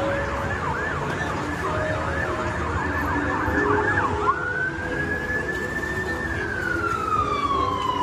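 Emergency vehicle siren going by on a city street: a fast up-and-down yelp for about four seconds, then it switches to a slow wail that rises, holds, and glides down near the end. Steady traffic rumble underneath.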